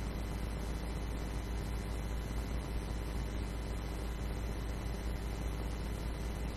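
Steady low hum under a constant hiss with no change: background noise of the broadcast line while nobody speaks.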